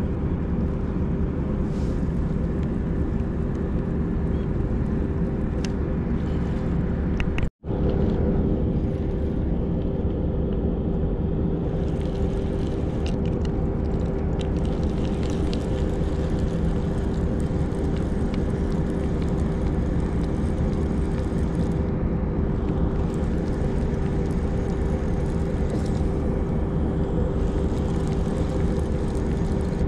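Steady mechanical drone with a constant hum running under it, unbroken except for a split-second dropout about seven and a half seconds in.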